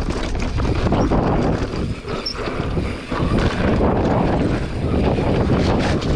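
Enduro motorcycle being ridden hard on a trail, the engine running under changing throttle with wind buffeting the microphone; the sound drops briefly about two and three seconds in.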